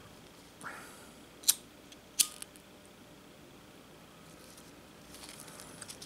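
Quiet handling of a lighter and a Velcro strap, with faint rustling and two sharp clicks about a second and a half in and a moment later.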